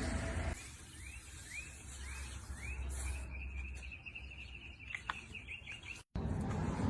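A bird chirping faintly: a series of short rising chirps, then a quick trill, after background music stops about half a second in.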